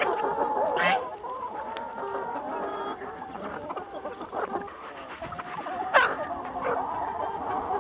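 A flock of hens clucking continuously, with a louder call about a second in and another about six seconds in.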